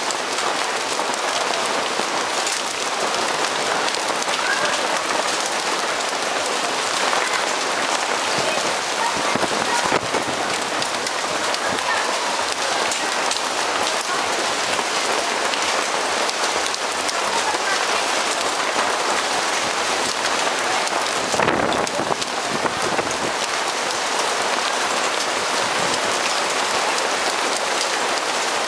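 Hail and rain falling on asphalt, wooden tables and stall canopies: a steady, dense hiss of countless small impacts. A brief low rumble comes about three-quarters of the way in.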